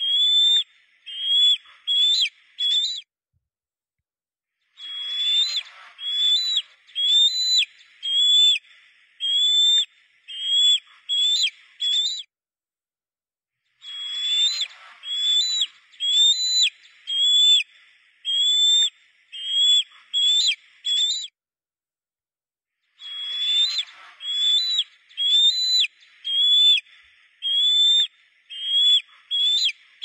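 Bird song: runs of clear whistled notes, each sliding up at its end, about two notes a second, in phrases of several seconds separated by short pauses.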